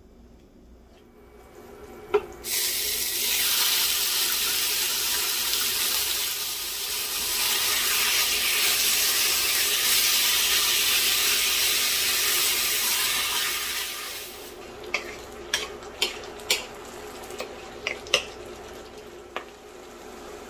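Ground chicken breast sizzling loudly in hot oil in a non-stick frying pan, beginning just after a sharp knock about two seconds in. From about fourteen seconds the sizzle is quieter and a run of sharp clicks and knocks comes from the spatula working the pan.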